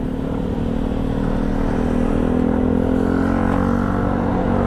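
Motor vehicle engines running in slow road traffic: a steady engine hum over road noise that grows a little louder over the first two seconds, then holds.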